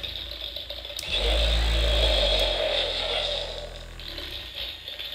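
Hasbro Spengler's Neutrona Wand toy prop playing an electronic blaster effect through its speaker. There is a click about a second in, then a deep rumbling blast with a hiss that fades away over the next few seconds.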